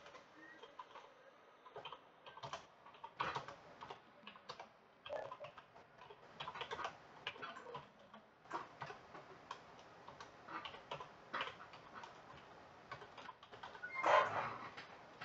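Computer keyboard typing: irregular keystroke clicks in uneven flurries, with a louder burst of sound near the end.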